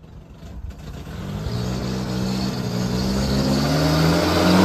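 A 1992 Nissan Vanette truck's engine pulling as the truck drives up, growing steadily louder as it approaches, its pitch rising as it accelerates.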